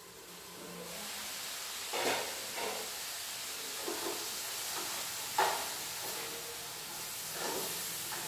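Green vegetables stir-frying in hot oil in a pan on a gas stove: a steady sizzle that starts about a second in, with a few clinks of a utensil against the pan, the loudest about five seconds in.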